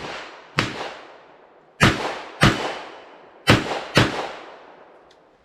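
Smith & Wesson Model 64 revolver firing five .38 Special shots, unevenly spaced and partly in quick pairs, each crack followed by a fading echo. The rounds are 158 grain lead round-nose reloads.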